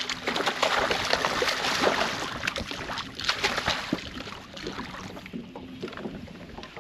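A hooked striped bass thrashing and splashing at the surface beside the boat, in many quick sharp splashes over a steady rushing noise, loudest in the first three seconds and dying away toward the end.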